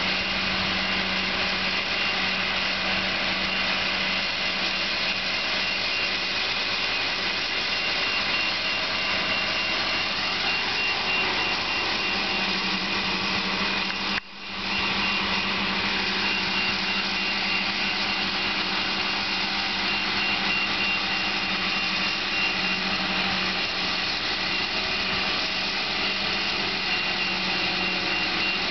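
Truck-mounted crane's diesel engine running steadily under load as it lifts and swings a heavy suspended load. The sound drops out for a split second about halfway through.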